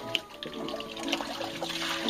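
Water splashing and trickling as fresh-caught fish are rinsed by hand in a concrete washboard sink, the splashing heaviest near the end.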